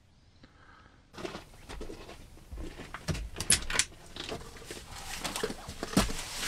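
Irregular clicks, knocks and light rustling of things being handled and set down, starting about a second in; the sharpest knock comes a little past the middle.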